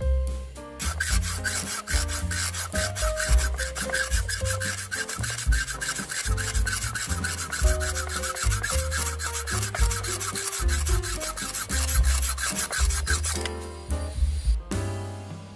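Hacksaw cutting through a thin perforated metal strip held in a bench vise, with rapid, steady back-and-forth strokes rasping on the metal. It starts about a second in and stops shortly before the end as the piece is cut off.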